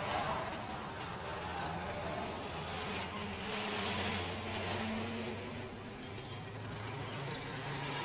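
Street traffic: motor vehicle engines running with a steady low hum, and noise that swells and fades as vehicles pass, loudest about four seconds in.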